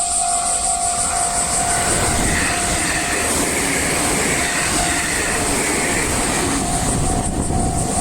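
Japanese railway level crossing's warning bell ringing in a steady repeating pattern while a train rushes through the crossing. The rush of the passing train half-covers the bell from about two seconds in until near the end.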